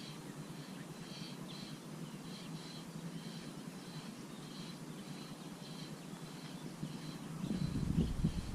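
Short high chirps from a calling animal, repeating about twice a second over a steady low hum. A louder low rumble swells in near the end.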